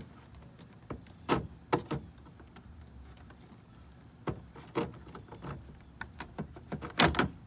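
Scattered hard plastic knocks and clicks as a car's taillight housing is pried and pulled free of the body, the loudest cluster near the end.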